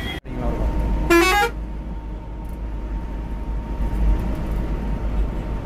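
Steady low rumble of a bus's engine and road noise heard from inside the moving bus, with a short vehicle horn toot about a second in.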